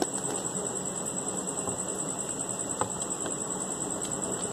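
A couple of light clicks, one at the start and one near the three-second mark, as the clock hand is pressed onto the spindle of a quartz wall-clock movement. Behind them is a steady, high, thin tone and a background hiss.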